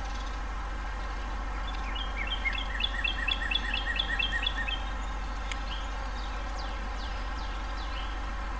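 A songbird singing a quick run of about a dozen repeated two-part notes, about four a second, for nearly three seconds. A few fainter downward-sliding calls come near the end.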